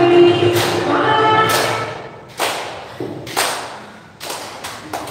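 Sharp percussive hits, about one a second, each with a short echo in a bare hall, from a group doing aerobics. Pitched music fades out over the first couple of seconds.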